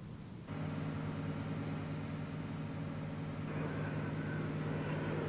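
Heavy diesel engine of a truck-mounted crane running steadily with an even hum. It cuts in suddenly about half a second in, and a rougher, hissier layer joins it about three and a half seconds in.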